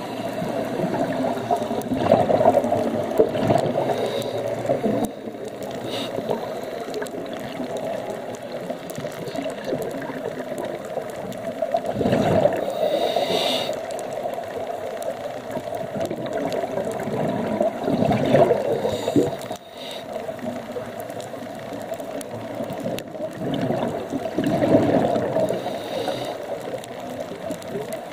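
A scuba diver breathing through a regulator, heard underwater through the camera housing: a low bubbling rumble of exhaled air that swells every few seconds, with quieter hiss and water noise between breaths.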